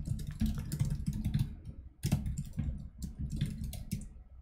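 Fast typing on a computer keyboard: two quick runs of keystrokes with a short pause about two seconds in.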